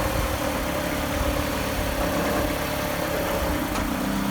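Mitsubishi Galant Fortis engine idling with a low rumbling ('gorogoro') noise, the sign of a seized one-way clutch alternator pulley that is resonating with the engine's pulses and shaking the accessory belt. Its steady hum shifts to a lower pitch near the end.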